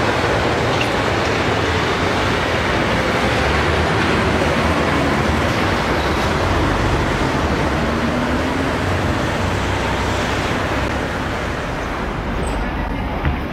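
Hamburg Hochbahn DT 2 metro train rolling away along an elevated viaduct, its running noise slowly fading, mixed with steady street traffic below.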